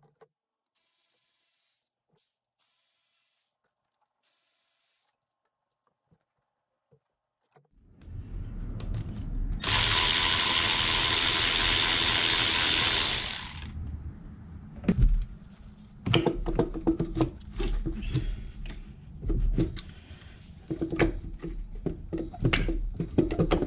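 Near silence for several seconds, then a Milwaukee cordless electric ratchet runs for about four seconds on a fastener on the engine. It is followed by a string of sharp clicks and knocks as parts and tools are handled.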